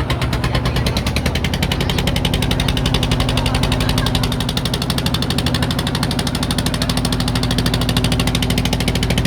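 A small engine running steadily, with a rapid, even firing beat and a steady low hum.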